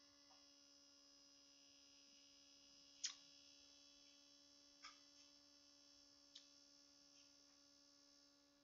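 Near silence: a faint steady electrical hum, with a few faint short clicks, the most distinct about three seconds in.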